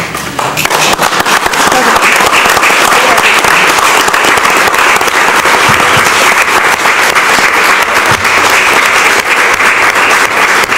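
Audience applauding: a dense, loud round of clapping that builds up in the first second and then holds steady.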